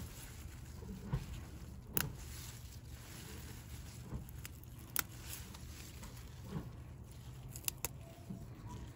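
Flat-leaf parsley stems being snapped off by hand: a few sharp snaps, the last two close together, with soft rustling of the leaves over a steady low rumble.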